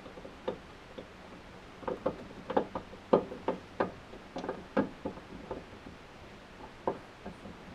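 Irregular light plastic clicks and knocks of a headlight bulb and hand fumbling against the back of a Toyota Prius headlight housing, feeling for the socket hole to seat the bulb.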